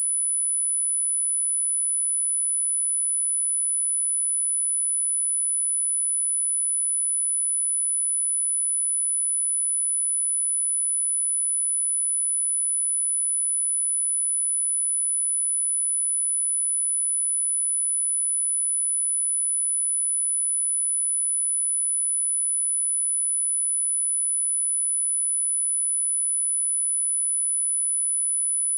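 A steady, unbroken pure sine-wave test tone at 9975 Hz, a single high-pitched whistle-like tone at constant level, used as a speaker test tone and to shake water and dust out of a speaker.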